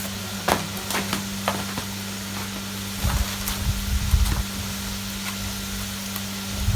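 Food deep-frying in hot oil, a steady sizzle, with a few light clicks in the first two seconds and some low bumps around the middle.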